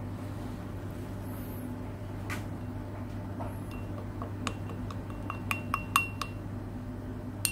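Metal teaspoon clinking against the inside of a drinking glass while stirring flour into vinegar: a quick run of light chinks with a short glassy ring in the second half, the loudest about six seconds in, and one more at the very end.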